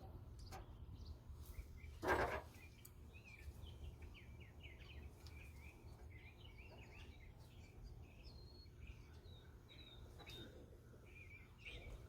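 Small birds chirping faintly and repeatedly, over a low steady hum, with one sharp knock about two seconds in.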